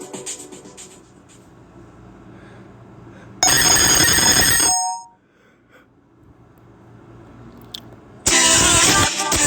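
Nokia E5 ringtones played on a Samsung Galaxy A51: one tune fades out in the first second, a short bright ringtone sounds for about a second a little past three seconds in, and another tune starts loud about a second before the end.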